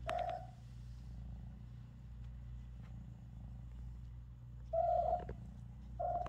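Kitten meowing in short calls: one at the start, a longer and louder one about five seconds in, and another just before the end. A steady low purring runs underneath.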